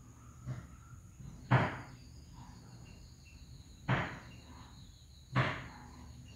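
Three sharp taps of a paintbrush, one to two and a half seconds apart, knocking spatters of watercolour paint onto the paper, over a faint steady high whine.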